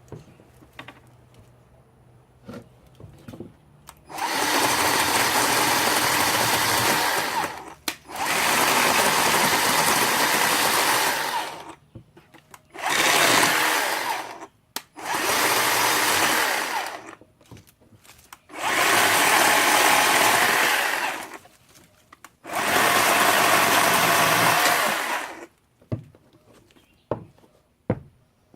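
WORX 40-volt battery-powered electric chainsaw run in six bursts of a few seconds each while cutting thick azalea stems. Between bursts it falls almost silent, since a battery saw does not idle.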